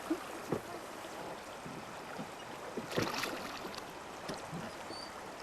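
River water rushing steadily around a drifting raft, with two short knocks, the louder one about three seconds in.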